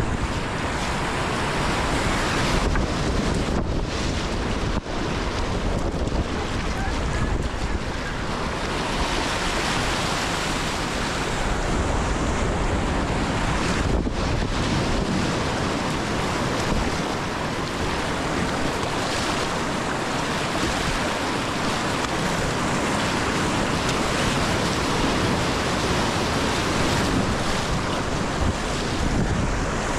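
Rushing whitewater around a sit-on-top kayak being paddled through a rapid: a steady, loud churning, with wind and water noise on the camera's microphone.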